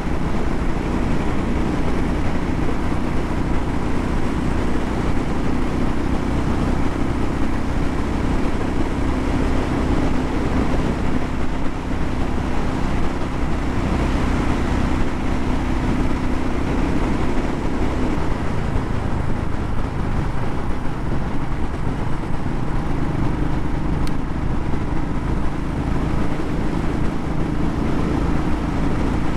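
Royal Enfield single-cylinder motorcycle running steadily at cruising speed, its engine mixed with steady wind rush.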